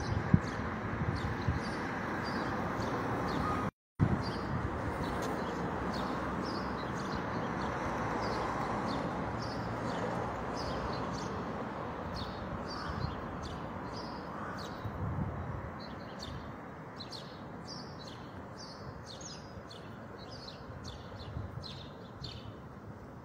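Small birds chirping in short, repeated high notes that come more and more often toward the end, over a steady hum of street traffic that slowly fades. The sound cuts out completely for a moment about four seconds in.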